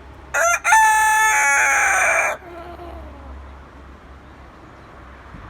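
Rooster crowing once: a short first note, a brief break, then a long held note that drops in pitch as it ends, about two seconds in all.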